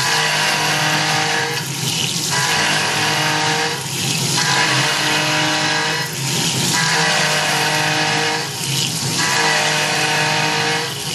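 Tormach PCNC 1100 CNC mill's spindle and end mill cutting a metal fixture plate under flood coolant: a steady whine over harsh cutting noise and coolant splashing. The cut eases off briefly about every two seconds as the trochoidal tool path loops the cutter in and out of the material.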